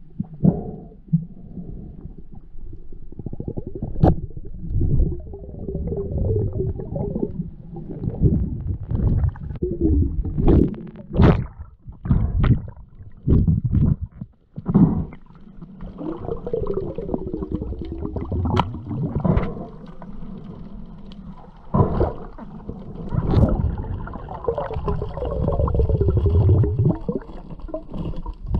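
Muffled underwater noise: low rumbling of water moving past the microphone, broken by scattered sharp clicks and knocks.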